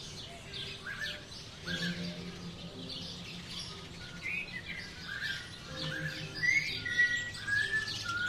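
Many birds chirping at once, a dense run of short overlapping chirps and calls, over background music with held low notes.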